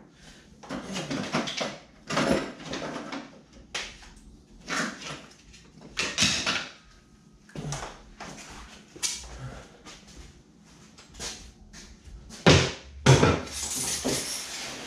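Rummaging through and gathering wooden scraps: irregular clattering, rustling and scraping of loose wood pieces, with two louder knocks near the end.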